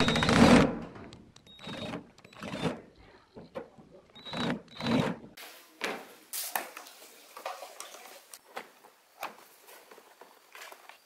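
A power drill with a screwdriver bit running in short bursts, turning screws in a power amplifier's metal lid: one longer run at the start, then four or five brief ones. After about five seconds, scattered light clicks and rattles of a plastic rotary-tool accessory case being set down and opened.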